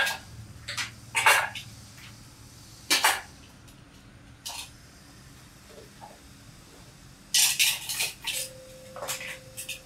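Metal parts and a stainless steel bowl clinking and scraping as they are handled, in short separate bursts, with a denser run of clatter about seven seconds in.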